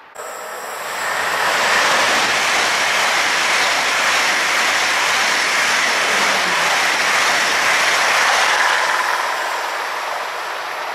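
Deutsche Bahn ICE high-speed electric train passing at speed: a steady rush of wheel and air noise that swells over the first two seconds, holds, then fades near the end as the train pulls away.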